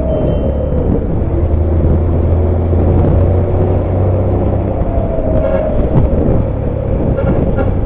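ALS intercity bus's diesel engine pulling through its 'Bogor' aftermarket exhaust, a deep snoring note. A heavy steady drone sits under a whining tone that falls over the first second and climbs again about five seconds in.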